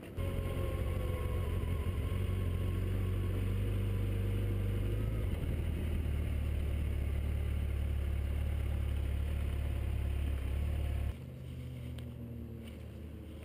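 Yamaha FJR1300 motorcycle's inline-four engine running while riding, heard from a handlebar-mounted camera, its note shifting lower about five seconds in. It cuts off abruptly near the end, leaving a quieter steady outdoor background.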